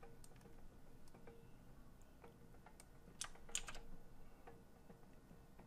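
Faint, scattered clicks of a computer keyboard and mouse being used at a desk, with a quick cluster of clicks about three and a half seconds in.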